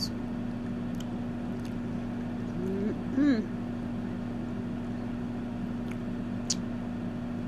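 Mouth sounds of someone eating a cheesesteak sub: faint wet clicks of chewing and lip-smacking, with a short hummed vocal 'mm' about three seconds in, over a steady low hum.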